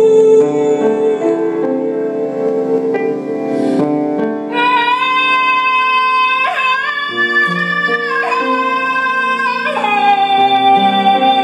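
A woman singing long held notes in a slow song with a Japanese traditional flavour, accompanied by piano. She takes a breath about four seconds in, then moves up to a higher held line.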